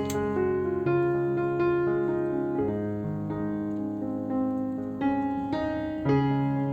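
Background piano music, with a melody of notes over sustained bass notes.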